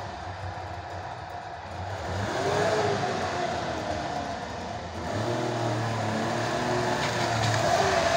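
Wartburg Tourist's three-cylinder two-stroke engine running as the car moves off slowly. It revs up and drops back about two seconds in, then again from about five seconds in.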